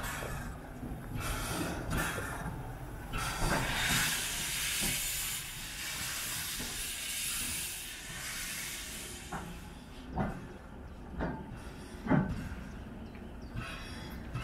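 0-8-0 steam locomotive 414.096 moving off slowly, steam hissing in repeated bursts from its open cylinder drain cocks and chimney. Three sharp knocks come in the last few seconds, the loudest near the end.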